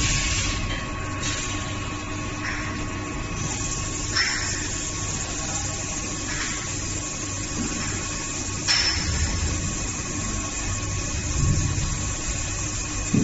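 VMC1100 CNC vertical machining center running a cut: a steady machine drone holding several constant tones, with short rushing surges every few seconds and one sharp click a little past the middle.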